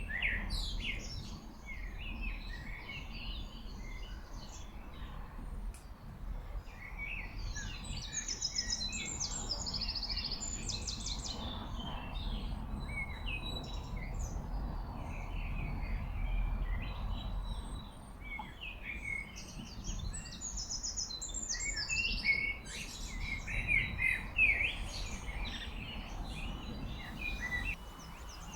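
Several small birds singing and chirping, in quick overlapping calls and trills, over the steady low rush of a mountain stream.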